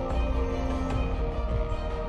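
Opening theme music: sustained chords over a heavy bass, with a sharp percussive hit about a second in and another near the end.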